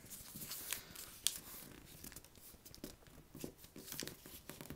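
Folded paper being pressed and rubbed flat by hand: faint scattered rustles, crinkles and scrapes as the creases of a paper airplane are flattened.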